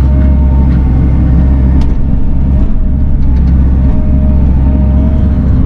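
Bobcat E42 mini excavator's diesel engine running steadily under load while the boom and bucket reach down into the water, with a thin whine over the low engine rumble.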